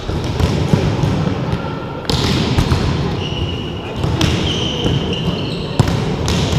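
Indoor volleyball rally: the ball struck several times by players' hands and forearms in sharp smacks, with voices in the background and echo from the hall.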